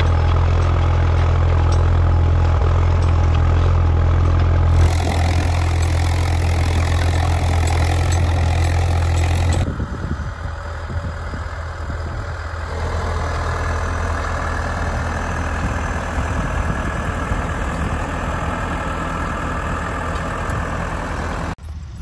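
Tractor engine running steadily under load while ploughing, heard close with a strong low drone. About ten seconds in the sound changes to a tractor engine heard at a distance, lighter and more even.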